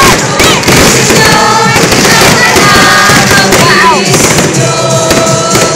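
Aerial fireworks bursting overhead in a dense, continuous crackle of bangs and pops.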